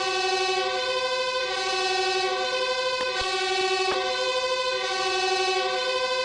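Two-tone fire engine siren alternating steadily between a lower and a higher pitch.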